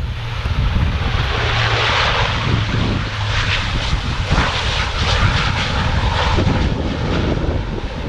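Airliner's engines running loud as the aircraft passes on a takeoff or landing run: a rushing engine noise that builds over the first couple of seconds and holds, with a steady low hum that fades out about three seconds in.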